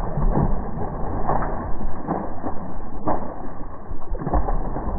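Hooked longnose gar thrashing at the water's surface, a run of irregular splashes with several louder slaps.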